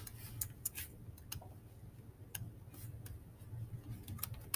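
Irregular clicks of a computer mouse, about eight spread unevenly, over a low steady hum.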